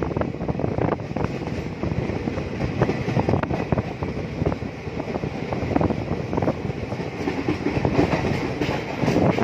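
Indian Railways passenger coach running along the track, heard from the train itself: a steady rumble with the wheels clattering irregularly over the rail joints.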